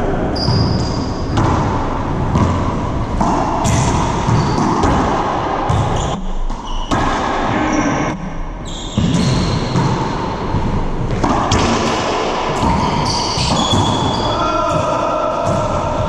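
Racquetball rally: the ball smacking repeatedly off racquets, the walls and the hardwood floor of an enclosed court, with players' shoes moving and squeaking on the floor.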